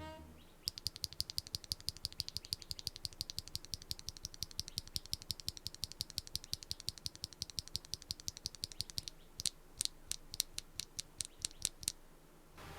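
Typing on a mechanical keyboard fitted with factory-lubed Akko x HMX Cilantro tactile switches: a rapid run of high-pitched, clacky keystrokes, then slower, separate presses near the end.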